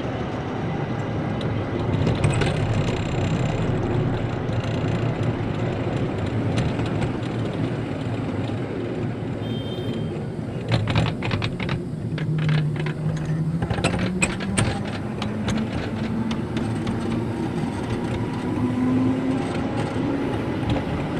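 Miniature ride-on garden railway train running over its track, with a steady rumble of wheels on rail. Around the middle comes a quick run of clicks as the wheels pass over points and rail joints, and in the second half a hum rises slowly in pitch.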